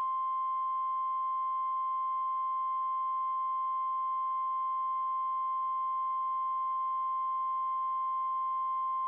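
A single steady alert tone near 1 kHz, like the 1050 Hz warning alarm tone of NOAA Weather Radio, which signals that an emergency message follows. It starts abruptly and holds one unwavering pitch, with faint overtones.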